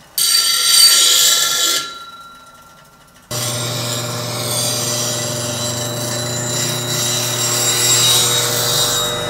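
A Steel City bench grinder grinding the lower bevel of a steel negative rake scraper, which raises a burr on the top cutting edge. There is a short burst of grinding hiss at the start. Then, after a brief lull, a steady motor hum starts suddenly about three seconds in, with grinding hiss over it.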